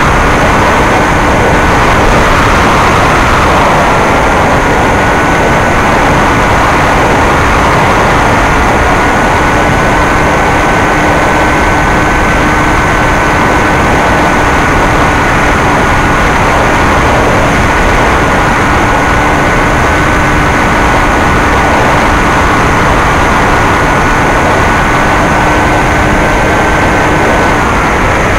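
Bixler 2 RC plane's electric brushless motor and 9x6 propeller running at a steady cruise throttle, a constant high whine over loud wind rush on the onboard camera's microphone. The whine dips briefly in pitch near the end, then comes back.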